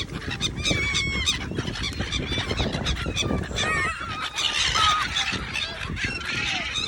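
A flock of domestic fowl calling over one another while being fed: many short bending calls, with a busy patter of short clicks and scuffles.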